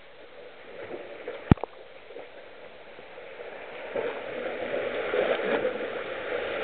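Water splashing and sloshing around a swimmer stroking through a river, growing louder about four seconds in. One sharp click about a second and a half in.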